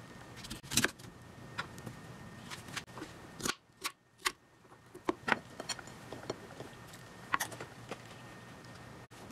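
A ceramic knife cutting a pear on a plastic cutting board: irregular sharp knocks and clicks of the blade slicing through the fruit and striking the board, with a brief gap a little past the middle.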